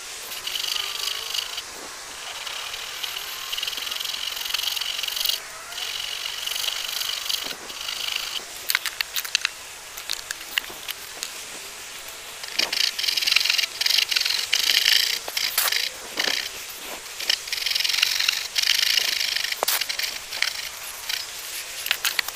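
Japanese ryoba pull saw cutting down the cheek of a tenon in a softwood 4x2: runs of quick, hissing saw strokes, the longest in the second half, with pauses and a few short knocks between them.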